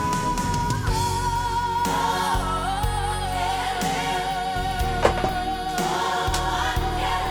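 Pop ballad playing: one long held note that wavers in pitch and steps down about a second in, over backing choir voices and a band with a steady bass.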